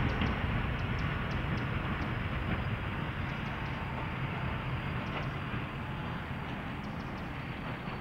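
Diesel locomotive engine running as the locomotive moves slowly away, its low rumble gradually fading.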